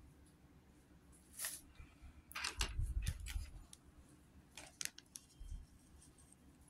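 Small plastic clicks and rustles from LEGO minifigure pieces and their packaging being handled: a rustle about a second and a half in, a cluster of clicks from about two and a half to three and a half seconds in, and a few sharp clicks near five seconds.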